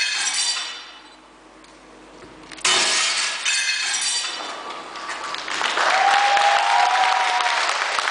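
Two loud crashes like breaking glass, each fading out over about a second, the second about two and a half seconds after the first, then a stretch of noisy clatter with a whine that rises and falls.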